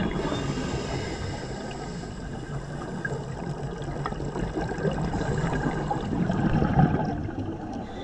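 Muffled underwater water noise, a steady low rushing with no distinct events, swelling a little in the second half.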